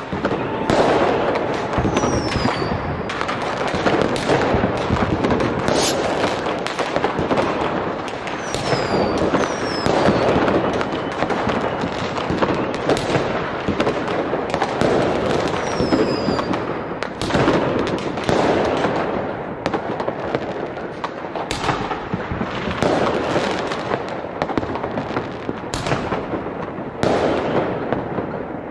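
Fireworks: a dense, unbroken barrage of bangs and crackling, with a few short falling whistles mixed in.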